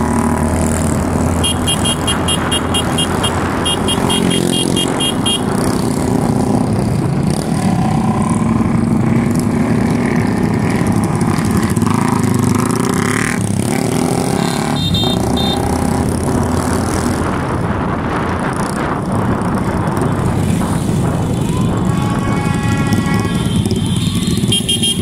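Motorcycle and scooter engines running together in a slow group ride, with a rapid, evenly pulsed electronic beeping for a few seconds near the start and again near the end. A horn sounds about three-quarters of the way through.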